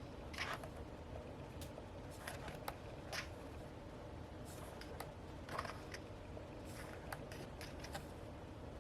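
Paper pages of a photo book being turned and handled: faint, scattered swishes and small clicks, about half a dozen over several seconds.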